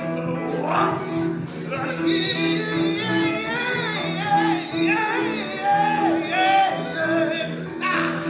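A man singing a show tune, his voice gliding and bending through the melody, over an accompaniment that pulses on repeated low notes.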